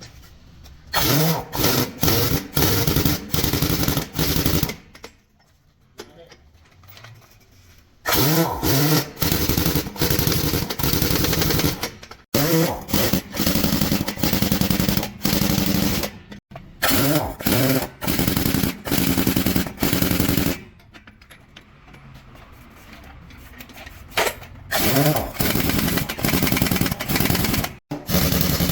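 Pneumatic impact wrench hammering in repeated short bursts, stopping and starting many times, with two longer pauses.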